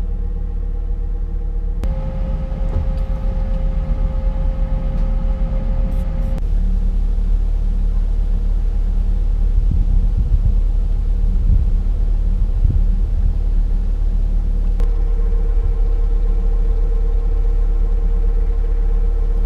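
Hire motor cruiser's engine running steadily while the boat cruises, heard from aboard as a loud low drone with a steady hum over it. Its tone shifts abruptly a few times.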